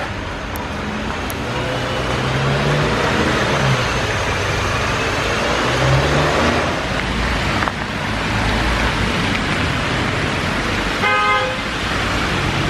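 Road traffic: cars driving past on a wet street, with one short car horn honk near the end.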